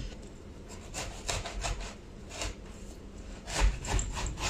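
Knife sawing through a watermelon: a run of irregular rasping strokes, loudest near the end.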